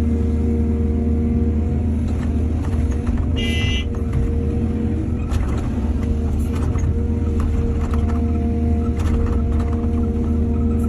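Excavator's diesel engine running steadily, with scattered clanks and one brief high-pitched tone about three seconds in.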